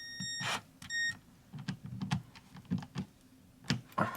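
Electronic beeps, a longer one ending about half a second in and a short one at about a second, followed by a scattering of light clicks or taps.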